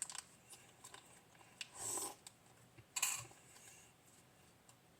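Nearly empty ketchup bottle being worked for its last bit: two short, airy sputters about two and three seconds in, with faint clicks of handling between them.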